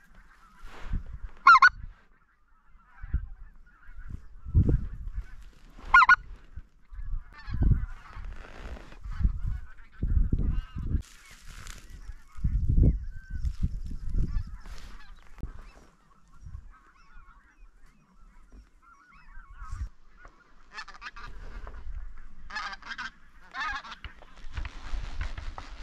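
Geese honking: several loud honks about 1.5 s, 6 s and 22–23 s in, over a steady faint chatter of many more calls. Low thumps come and go between about 4 and 14 s.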